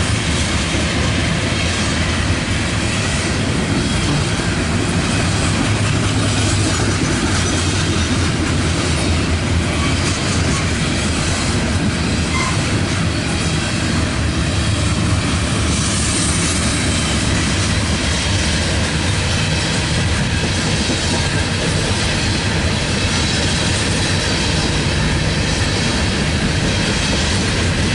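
Loaded coal hopper cars of a CSX freight train rolling past at a steady speed: a continuous heavy rumble and clatter of steel wheels on the rails.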